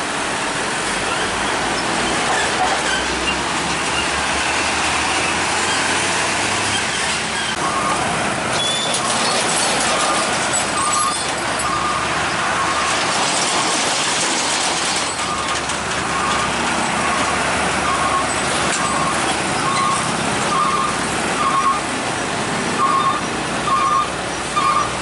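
Steady noise of heavy road traffic, trucks among it, passing at a railway level crossing. About a third of the way in, the crossing's warning bell starts dinging, about one and a half strokes a second, and keeps on over the traffic with a short break.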